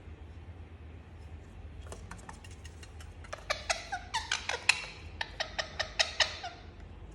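Indian ringneck parakeet making a rapid run of short, sharp squeaks and clicks for about three seconds, starting about three seconds in, after a few faint clicks.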